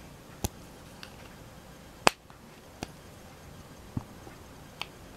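Small plastic Playmobil pieces clicking as they are handled and fitted into place: about six sharp separate clicks, the loudest about two seconds in.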